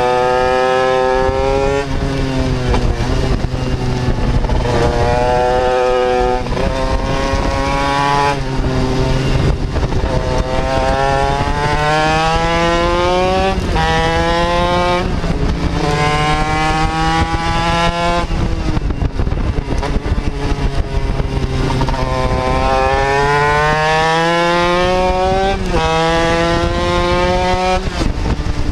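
Racing motorcycle engine at full throttle, heard from on board: the revs climb steeply through the gears and drop sharply at each upshift, then fall back and waver at lower revs as it brakes and turns through corners, several times over.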